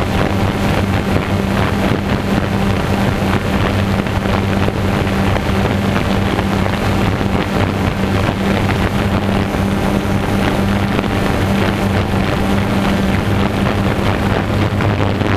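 DJI Phantom 2 quadcopter's four motors and propellers whirring steadily in a hover, a constant hum with a rush of wind noise on the camera's microphone.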